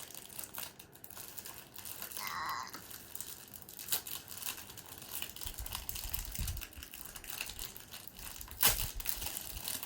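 Plastic toy packaging crinkling and rustling as it is handled, with scattered small clicks and a sharp crack of plastic near the end.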